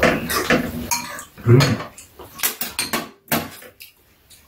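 Metal spoons and chopsticks clinking and scraping against bowls during a noodle meal: irregular light clicks, thinning out in the last second or so.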